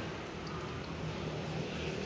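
Steady low engine drone with a faint hum, a little stronger in the second half.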